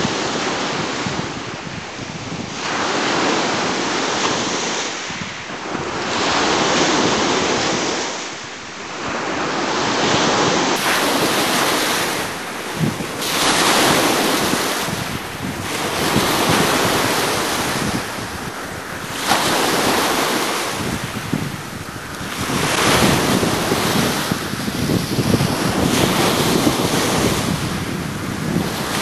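Rough sea breaking on the shore, the surf swelling and falling back every few seconds, with wind buffeting the microphone.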